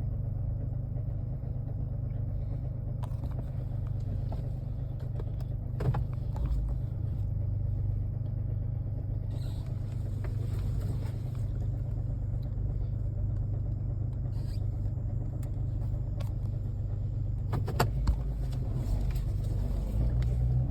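2013 Ford Taurus SHO's 3.5L EcoBoost twin-turbo V6 idling steadily after a cold start, with a rhythmic chatter that the owner takes for a worn cam phaser plus a broken timing chain guide letting the chain slap. A couple of sharp clicks stand out, about six seconds in and near the end.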